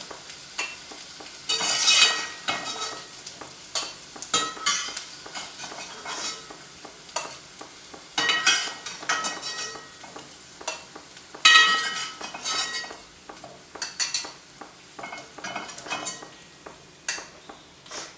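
A slotted metal spatula scrapes and clinks against a nonstick pot and a steel bowl as fried paneer cubes are lifted out of shallow oil, over a light sizzle of hot oil. Frequent irregular clinks, some ringing briefly.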